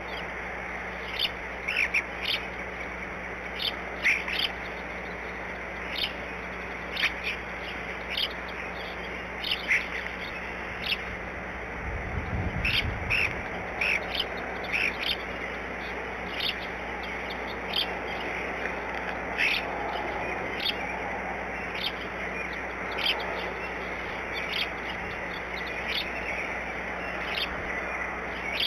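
Birds chirping in short, scattered calls over a steady outdoor hiss, with a brief low rumble near the middle.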